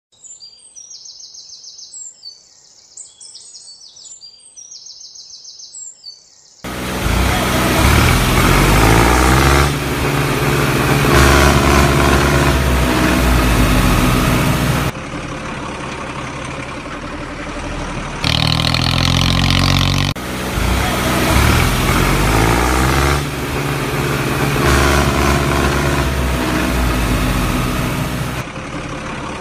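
Birds chirping in short repeated calls for the first six seconds or so, then a loud heavy truck engine revving and labouring, rising and falling in pitch, with abrupt cuts between stretches. This is a dubbed sound effect: the toy trucks are pulled by a string and make no engine sound of their own.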